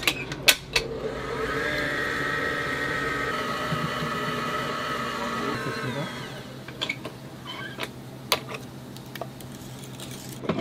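Stand mixer with a wire balloon whisk running steadily in a steel bowl of cream, a motor whine that dips in pitch and stops about six seconds in. Sharp metal clicks and knocks as the whisk is fitted at the start and handled in the bowl near the end.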